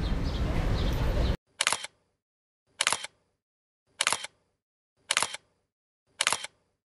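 Steady background noise cuts off abruptly about a second and a half in. Then a camera shutter click, the sound effect laid over a photo slideshow, repeats five times, evenly about once a second, against silence.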